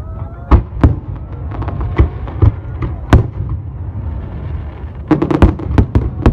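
Fireworks display: sharp bangs at irregular intervals over a steady low rumble, with a quick run of several bangs about five seconds in.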